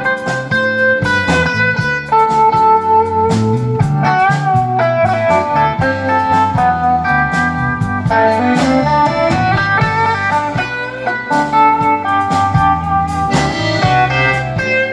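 Live blues band playing an instrumental break between verses: electric guitars, accordion and a drum kit keeping a steady beat.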